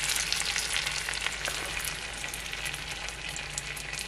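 Spinach frying in a nonstick pan as egg whites are poured in: a steady sizzle with many small crackles, growing a little quieter over the few seconds.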